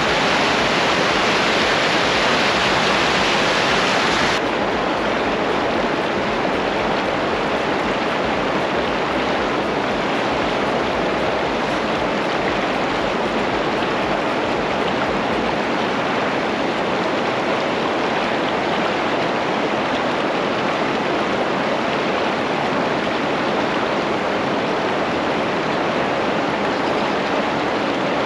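River water rushing steadily, running high with a strong current. About four seconds in the sound drops a little and loses some of its hiss.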